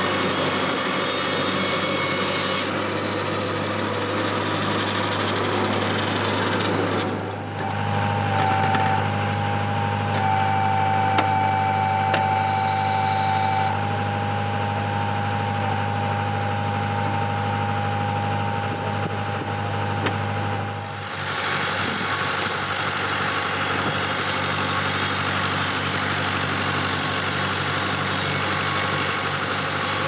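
Wood-Mizer LT70 electric band sawmill running, powered by a diesel generator, with a steady low hum throughout. A loud hiss of the band blade sawing timber lies over the hum at first, drops away about seven seconds in to a quieter hum with a steady whine, and comes back about twenty-one seconds in.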